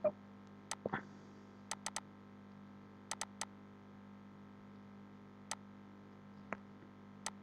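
Faint, sharp computer mouse clicks, some single and two quick runs of three, over a low steady electrical hum.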